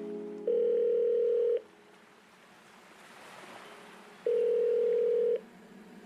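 Two long, steady electronic horn-like tones, each about a second long and the same pitch, with a soft hiss rising and fading between them.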